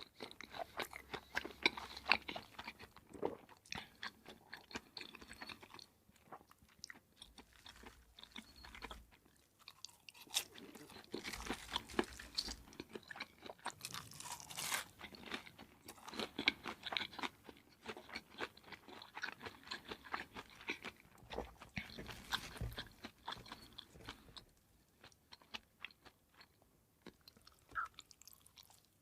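Close-miked eating: crunchy food bitten and chewed, with dense crackling crunches in bouts separated by brief pauses.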